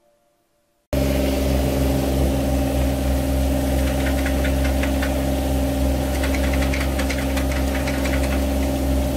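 Compact loader's engine running steadily, starting abruptly after about a second of near silence. From about three to eight seconds in, clods of wet soil rattle and clatter into its steel bucket as an excavator bucket dumps dirt into it.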